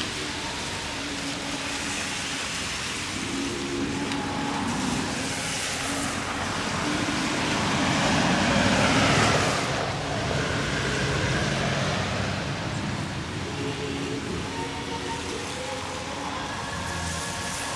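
Road traffic passing on a wet road, tyres hissing on the wet surface, with engines running. The loudest pass comes about halfway through, as a utility truck drives by and fades away.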